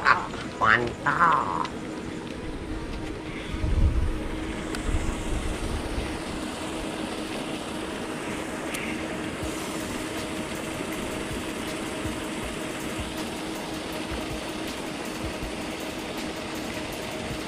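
A steady mechanical hum holding one low tone, with a few short sharp sounds at the start and a dull low thump about four seconds in.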